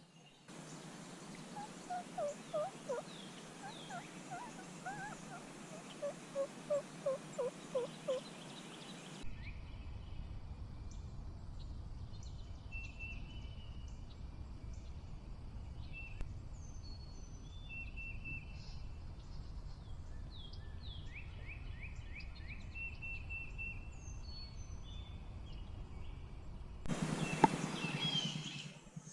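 Wild turkey tom gobbling twice, each gobble a fast rattling run of falling notes. After that, songbirds chirping over a low steady rumble, and near the end a louder burst of noise with one sharp knock.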